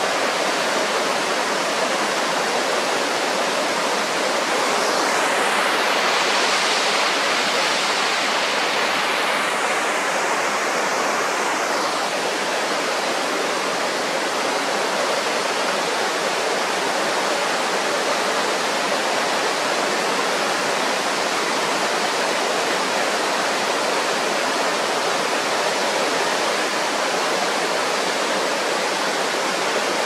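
Akiu Falls plunging into its pool, with the river rushing over rocks below it: a steady roar of falling and running water, a little brighter and hissier for several seconds about a third of the way in.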